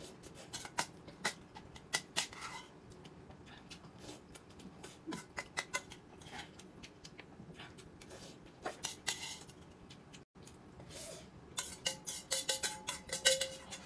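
Eating utensils clicking and clinking against bowls and plates during a meal: scattered light clinks that grow busier near the end.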